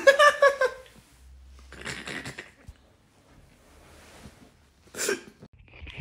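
A person's voice: a short exclaimed cry at the start, then a few breathy bursts of laughter, the sharpest near the end.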